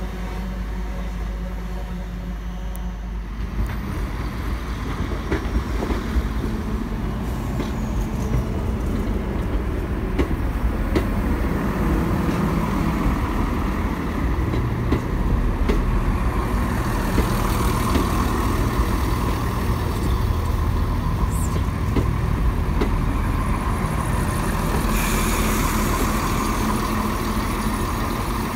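Greater Anglia passenger trains moving through station platforms: a Class 379 electric unit coming in for the first few seconds, then a multiple-unit train rolling slowly along the platform with a steady low rumble that grows louder partway through.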